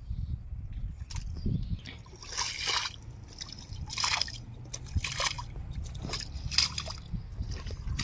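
Canal water being bailed out by hand, a splash of thrown water roughly every second and a half, about five in all.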